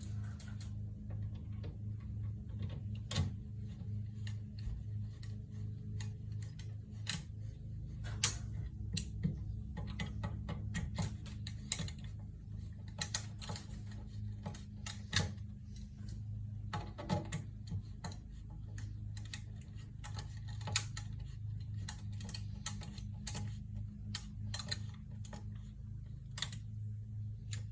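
Irregular clicks and light knocks, like small hard parts being handled, over a steady low hum.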